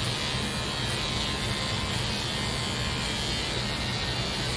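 Electric hair clippers buzzing steadily as they trim short hair at the side of a man's head, above the ear.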